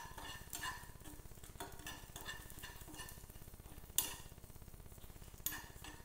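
A utensil stirring dry-roasting grated coconut and spices in a metal pan, scraping and clinking against the pan in short repeated strokes, with a sharper knock about four seconds in and another near the end.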